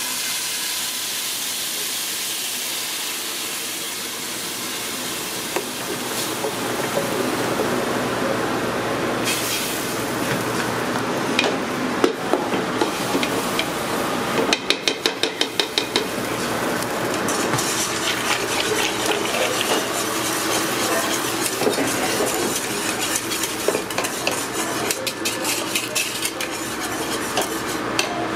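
Thick sauce poured into an aluminum saucepan on a gas range, then stirred and whisked, over a steady sizzling hiss. The utensils scrape and tap against the pot, with a quick run of taps about halfway through and frequent clicking of the metal whisk in the second half.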